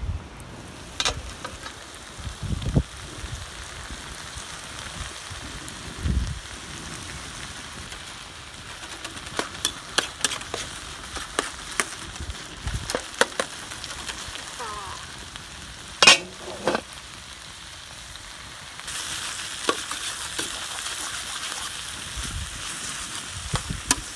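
Vegetables sizzling and frying in a large steel pan over an open fire, with metal utensils clicking and scraping against the pan as they are stirred. The sizzle gets louder for the last few seconds.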